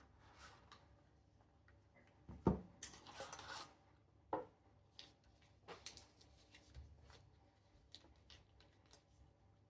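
Scattered light handling noises in a small room: soft clicks and knocks, with a louder knock about two and a half seconds in followed by a brief rustle, and another knock a little after four seconds.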